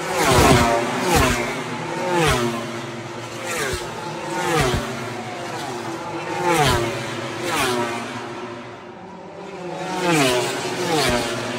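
MotoGP race bike engines revving and dropping away in pitch over and over, about once a second, with a sharp crack at the start of each drop.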